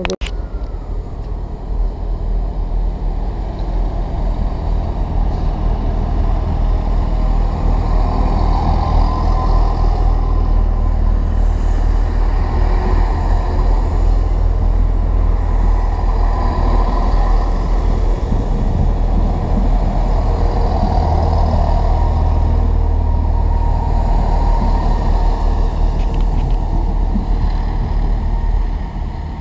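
Great Western Railway Networker Turbo diesel multiple unit moving slowly past along the platform, its diesel engines giving a steady deep rumble that swells a few seconds in and eases near the end.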